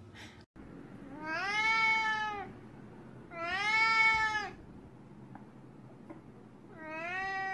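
Adult Siamese cat meowing: three long meows, each rising and then falling in pitch.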